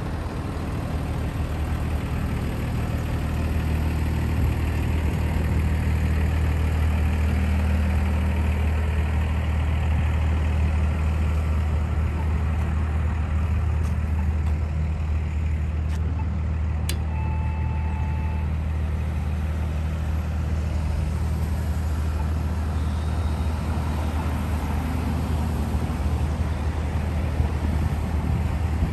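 Street traffic at a town intersection: a steady low rumble of idling and passing vehicles. A sharp click and a short beep come about two-thirds of the way through.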